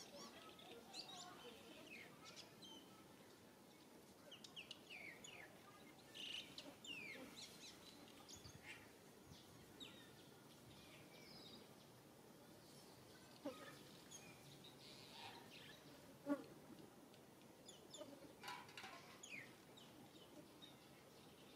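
Faint bird chirps: short, high, falling calls scattered throughout, with two sharp clicks in the middle, the second one the loudest sound.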